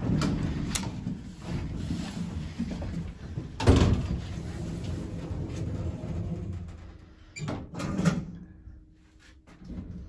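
Passenger lift's automatic sliding doors running shut over a steady mechanical hum and meeting with a thud about four seconds in. Two shorter knocks follow a few seconds later.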